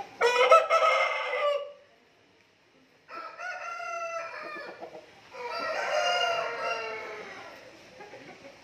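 Gamecocks (fighting-breed roosters) crowing: three long crows, the first the loudest.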